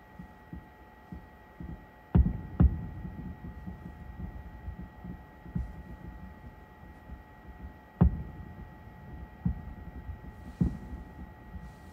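Distant aerial firework shells bursting as dull booms. Two loud ones come close together about two seconds in, another about eight seconds in, and fainter thumps fall in between, over a steady low rumble.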